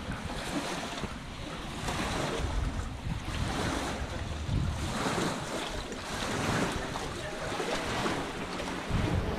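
Wind buffeting the microphone, with choppy lake water lapping and splashing against a wooden jetty in uneven surges.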